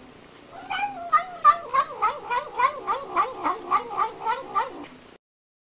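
Domestic cat making a rapid run of short warbling calls, about three a second, wavering up and down in pitch. The calls start about half a second in and cut off abruptly near the end.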